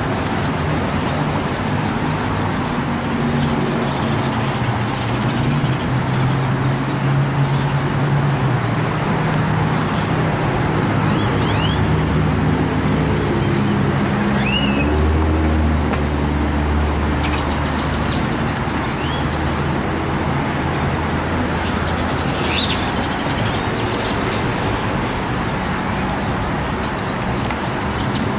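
Motor vehicle engine running over a steady noise, its low tone shifting in pitch and growing stronger for several seconds past the middle.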